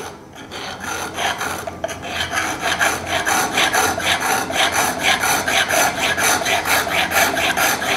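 A 6 mm round chainsaw file rasping back and forth in quick, even strokes across a tooth of a pressed-steel Arbortech Pro 4 woodcarver blade, sharpening it the way a chainsaw tooth is sharpened. The strokes start softly and settle into a steady rhythm after a second or two.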